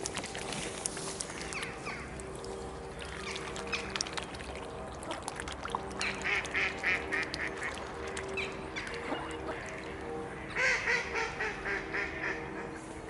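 Mallards quacking in two runs of about eight quick quacks, one about six seconds in and one near the end, over the steady low hum of a helicopter overhead. Soft clicking and splashing of mute swans dabbling at the water's edge comes before the quacks.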